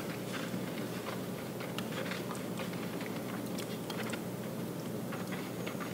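Fingers mixing Ultracal 30 gypsum cement and water in a plastic mixing cup, breaking up clumps: a stream of small irregular wet clicks and ticks.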